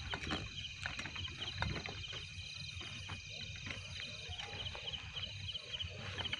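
Crickets chirping in a steady, even rhythm, with soft footsteps crunching on a dirt path.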